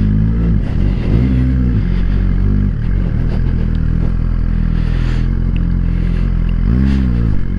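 Suzuki GSX-R1000R's inline-four engine running at low revs as the bike pulls away slowly, its pitch briefly rising and falling twice: about a second in and again near the end. Heard through a microphone inside the rider's helmet.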